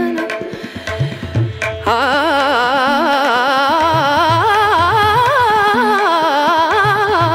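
Background Indian music: a few sharp beats, then from about two seconds in a long, wavering melodic line that holds steady.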